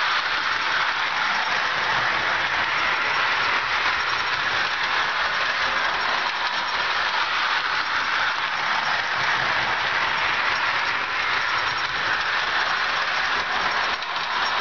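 Lionel Thomas the Tank Engine electric toy train running around a layout: a steady rolling hum of its electric motor and wheels on the rails.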